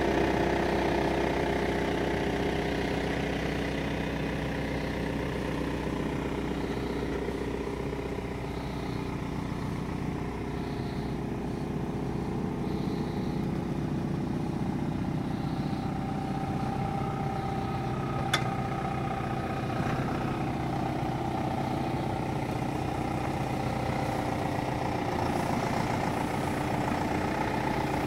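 Small tractor engine running steadily at idle. There is one sharp click about two-thirds of the way through.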